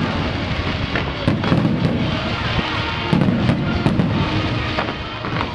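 Fireworks going off in quick succession: a dense run of sharp bangs and crackling, with music playing alongside.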